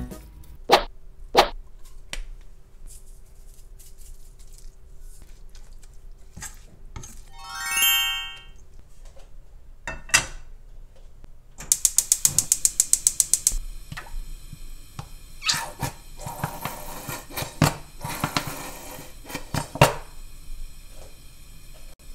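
Gas hob's electric igniter clicking rapidly, about ten ticks a second for nearly two seconds, while a frying pan sits on the burner; then a pan knocking and clattering on the stove grate. Earlier, a spoon knocks twice on a stainless steel mixing bowl, and a short rising tone plays.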